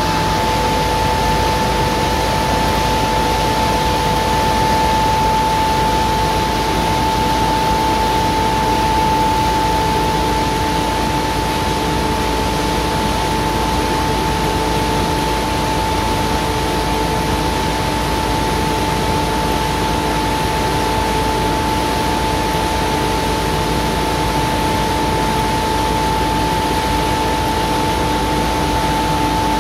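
Belt-driven centrifugal wet shell transport fan of a palm oil mill, with its electric motor, running steadily: an even rushing noise with a steady high whine over it.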